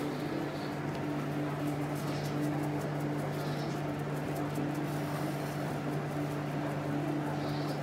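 Steady low hum of a running kitchen appliance, with faint light rustling from a paper curry-powder sachet being shaken over a glass bowl.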